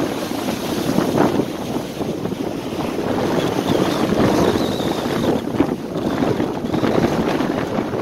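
Strong gusting wind buffeting the microphone over the steady wash of waves surging and breaking against a rock breakwater.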